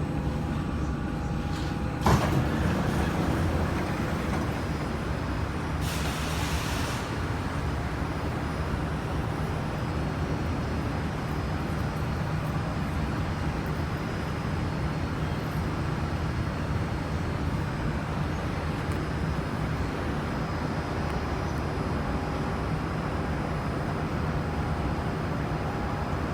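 Steady running rumble inside a Kawasaki-CRRC Sifang CT251 metro train, with one sharp clunk about two seconds in and a short burst of air hiss about six seconds in.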